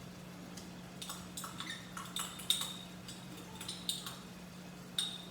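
Spoon clinking and scraping against a dish as butter is mixed, in scattered light taps, with a sharper clink about two and a half seconds in and another near the end.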